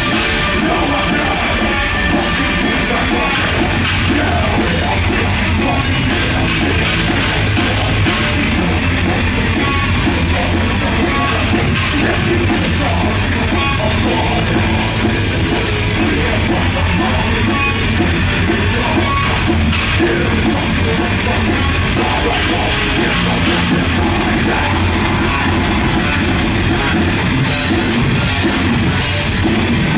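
Live heavy metal band playing loud and dense: distorted electric guitars over a drum kit. A heavy low bass line thickens the sound about three seconds in.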